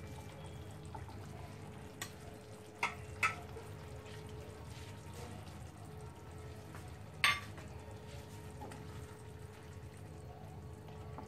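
Fish curry cooking in a non-stick kadai on a gas stove, stirred with spatulas, over a steady low hum. A few light knocks of the spatulas on the pan stand out, the sharpest about seven seconds in.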